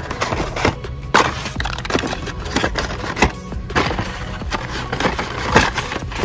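Hot Wheels blister-pack cards clacking and rustling against each other and the cardboard shipper as they are flipped through and pulled out by hand, with irregular sharp clicks throughout.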